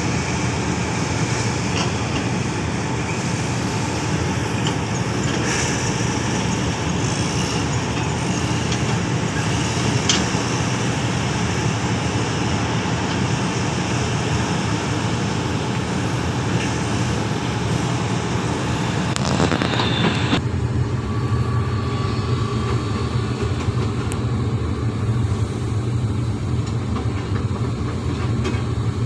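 Heavy diesel engines of Sany SY365H hydraulic excavators running under load while digging, a steady low drone with a few sharp knocks. About twenty seconds in there is a short loud burst, after which the higher hiss falls away and mostly the low engine drone remains.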